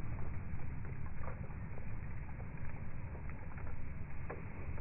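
Low, steady rumble of background noise with a few faint soft ticks, and no gunshot: a lull between rifle shots.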